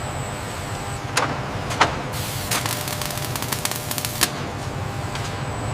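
Factory ambience: a steady hum of machinery with a low rumble, broken by sharp knocks and clicks several times, the loudest nearly two seconds in.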